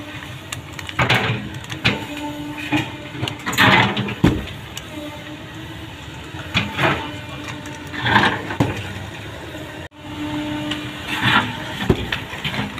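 Caterpillar 307 mini excavator digging soil: the engine and hydraulics run under load with a steady whine that comes and goes as the arm works, and repeated short scraping noises from the bucket in the dirt.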